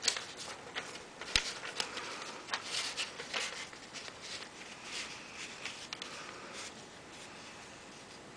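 A sheet of lined notebook paper rustling and crinkling as hands fold it over and press the crease flat, in a string of short, sharp crackles and scrapes with one light tap about a second and a half in. The handling dies away about two-thirds of the way through.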